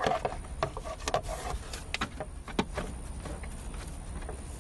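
Scattered light clicks and knocks of plastic dashboard trim and hose being handled and fitted, over a steady low hum.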